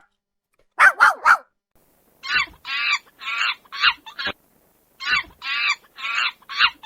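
A dog barking three quick times about a second in, then a run of repeated honking calls, typical of a goose, coming in groups of four or five.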